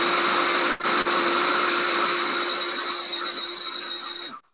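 Small electric blender running, grinding cookies and nuts into crust crumbs: a loud, steady motor whine that cuts out twice briefly about a second in, then drops off and stops just before the end.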